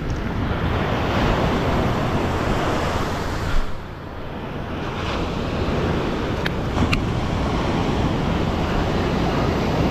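Ocean surf breaking and washing up the beach, with wind buffeting the microphone. The rush eases briefly a little before the middle, and a couple of faint ticks come later.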